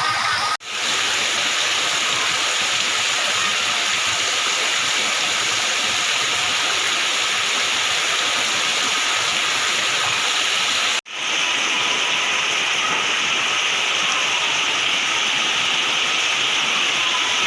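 Heavy rain pouring down in a steady hiss, with two sudden momentary dropouts, about half a second in and about eleven seconds in.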